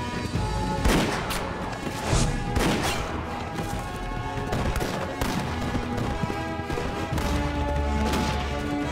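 Battle sound effects from a film soundtrack: several sharp gunshots at uneven intervals over background music with sustained tones. A low rumble comes in near the end.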